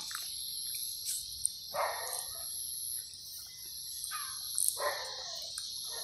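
A steady, high-pitched chorus of insects buzzing, with a few brief rustles about two seconds in and again around four to five seconds in.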